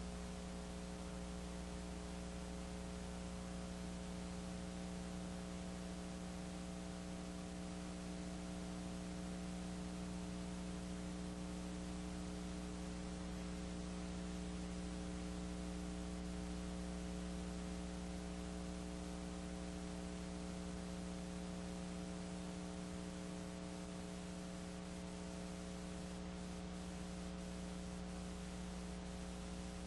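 Steady electrical mains hum, a low drone with several overtones, over even hiss, unchanging throughout; no game or crowd sound stands out above it.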